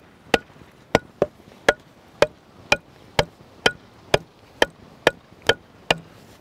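Stakes being hammered into the ground: sharp, evenly spaced blows about two a second, thirteen strikes in all.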